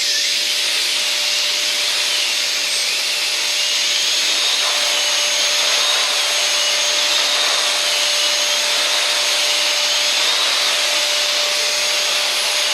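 Dyson DC39 Animal canister vacuum running on carpet with its brush bar spinning. An even rush of air with a steady whine, and a fainter whine that wavers slowly up and down.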